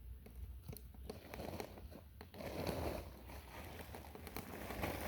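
Dry sticks and brushwood being handled at a campfire that won't catch: scattered crackles, snaps and rustling, with two louder short rushing noises about two and a half and five seconds in.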